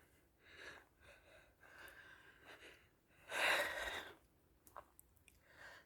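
Breathing close to the microphone: a run of short breaths, with one louder, longer breath about three and a half seconds in.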